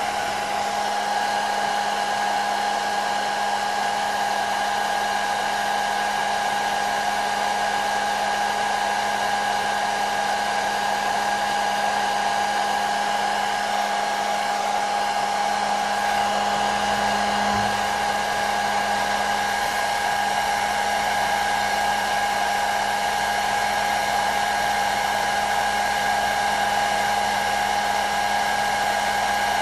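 Hair dryer running steadily: an even blowing rush with a constant motor whine over it.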